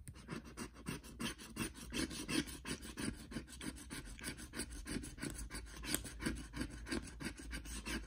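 Teal plastic scratcher tag scraped back and forth over a scratch-off lottery ticket in rapid short strokes, rubbing off the scratch-off coating. The coating is hard to scratch.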